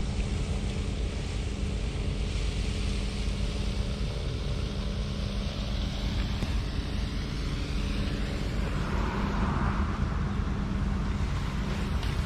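An engine running steadily at constant speed, a low rumble with a steady hum.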